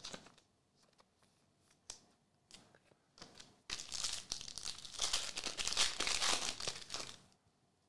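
A few faint clicks, then the foil wrapper of a Panini WWE Photogenic trading-card pack being torn open and crinkled for about three and a half seconds.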